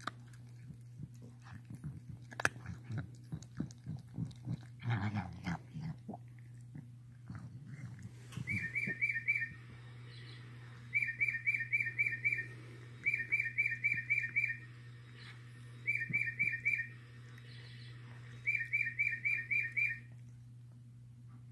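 A pet's breathing, making rhythmic bursts of rapid high squeaky chirps: five bursts of about six quick notes each, a couple of seconds apart, like one squeaking breath after another. This is the breathing that sounds strange to its owner. Before the bursts begin there are scattered soft clicks and rustles, and a steady low hum runs under it all.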